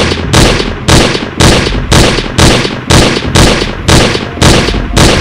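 A rapid series of loud, sharp bangs, about two a second, each with a short ringing tail, over a steady low rumble.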